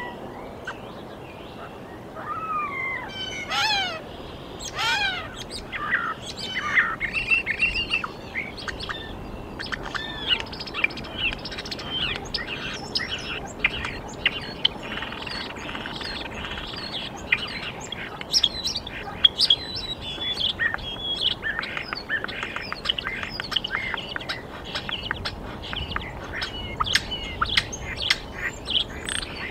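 Wild birds chirping and singing, many short high calls overlapping. A few louder calls that fall in pitch sound in the first few seconds.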